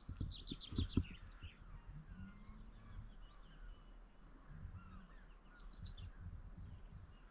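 Small birds calling outdoors: a quick falling run of high chirps in the first second, scattered short calls throughout, and another brief high burst about five and a half seconds in. A few low footstep thumps near the start are the loudest sounds, over a steady low wind rumble.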